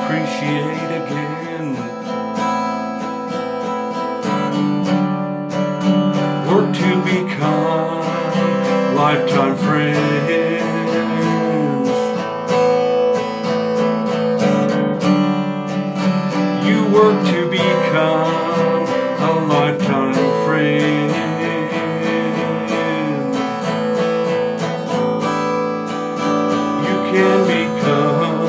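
Acoustic guitar strummed steadily, with a Hohner diatonic harmonica played in a neck rack carrying the melody over it in an instrumental break.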